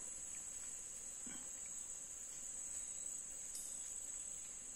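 A steady, high-pitched insect chorus: a continuous shrill held at one pitch without a break.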